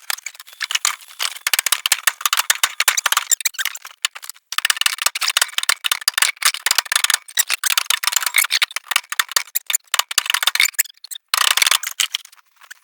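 Dense, rapid clicking and rattling of hand tools working the sheet metal of a car body panel during paintless dent repair, with short breaks about four and eleven seconds in.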